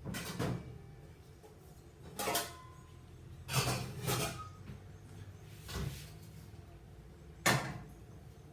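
Kitchen bumps and clatters: five or six separate knocks, like drawers and cupboards being opened and shut and a chopping board and knife being set out.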